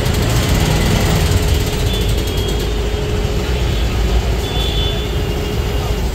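Hydraulic EVA press power pack running: its electric motor and hydraulic pump give a loud, steady hum with a thin whine over it.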